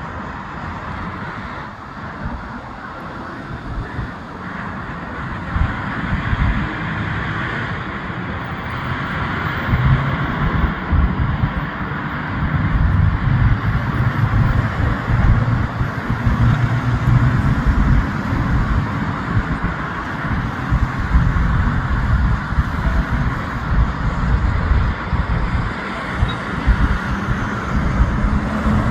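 Jet engines at takeoff power: a low rumbling noise that builds over the first ten seconds or so, then stays loud and crackling.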